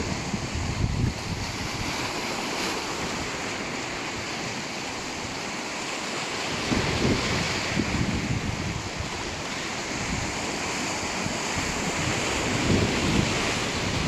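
Sea waves washing on the shore in a steady hiss, with wind buffeting the microphone in low gusts, strongest about halfway through and again near the end.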